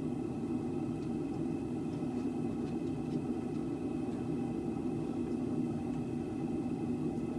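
A steady low mechanical rumble with a faint even hum, unchanging throughout, with no strikes or clanks.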